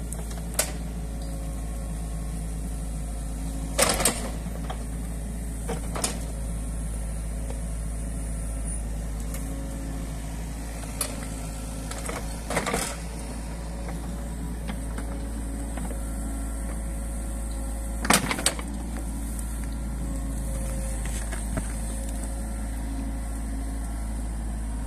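New Holland Kobelco E50.2 mini excavator running steadily under load as it digs out a ditch, with several sharp knocks from the bucket and its attachment, the loudest near four seconds in and again past the middle.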